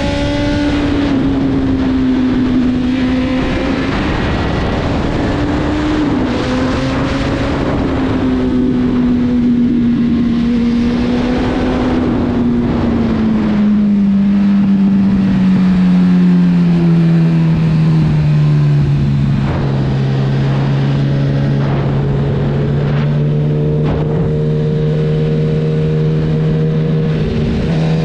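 Honda CB1000R's inline-four engine running under way, heard from onboard over steady wind and road rush. Around the middle the engine note falls gradually over several seconds as the revs drop, then holds steady at a lower pitch.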